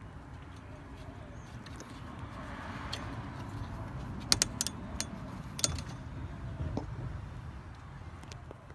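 A few sharp metallic clinks of hand tools being handled, grouped a little past the middle, over a low steady background rumble that swells and fades midway.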